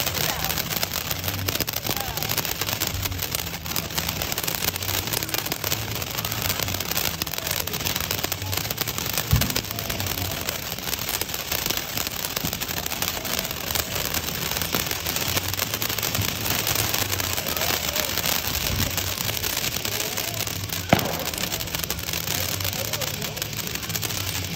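Phantom Storm Runner ground fountain firework spraying sparks: a steady, dense crackling hiss, with two sharper pops, one about nine seconds in and one about twenty-one seconds in.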